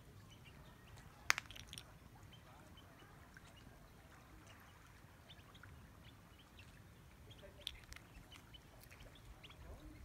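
Faint low-tide shoreline ambience: a low steady rumble with scattered small ticks and faint bird calls, a sharp click about a second in and another smaller one near eight seconds.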